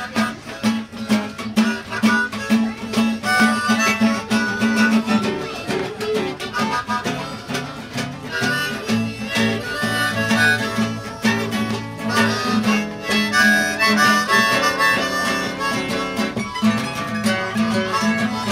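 A blues jug band playing live, a harmonica carrying the melody over guitar and a steady rhythm.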